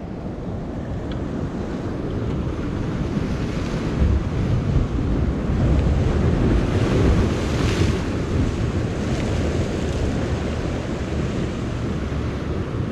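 Ocean surf breaking and washing against jetty boulders, with wind buffeting the microphone. The wash swells louder partway through.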